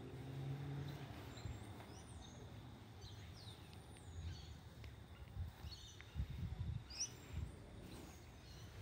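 Small birds chirping faintly, a string of short high chirps and quick rising and falling whistles. A low hum sits under the start, and a few low rumbling thumps come about six to seven seconds in.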